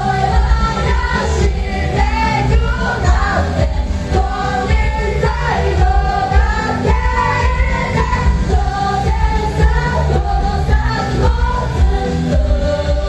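Live J-pop idol performance: sung vocals, female singing, over a loud amplified band track with a heavy bass beat, recorded in a live house.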